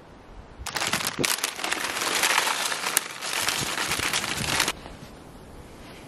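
Plastic packaging crinkling and rustling, with many small crackles, starting a little under a second in and cutting off abruptly about four seconds later.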